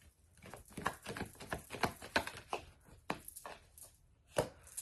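Tarot cards being shuffled and handled on a table: a quick, irregular run of light clicks and flicks, with a sharper snap near the end.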